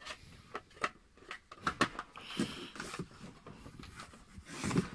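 Handling noise: a refractor telescope tube being shifted in its cardboard packaging, with scattered light knocks and short rustles of cardboard.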